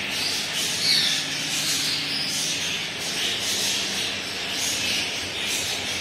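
A room full of small cage birds chirping and twittering at once, a dense, continuous overlapping chatter of high calls.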